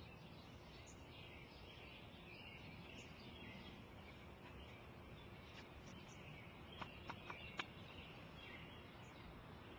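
Near silence: faint outdoor ambience with distant birds chirping, and four quick sharp clicks a little after the middle.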